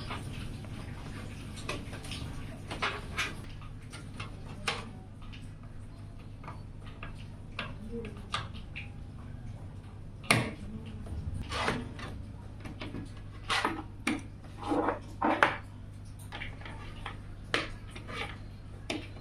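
Irregular clicks and light knocks of hard objects being handled, loudest in a cluster in the second half, over a steady low hum.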